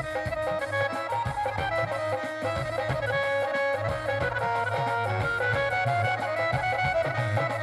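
Instrumental break in a live Punjabi folk song: an electronic keyboard plays a busy melody over a steady dhol drum beat.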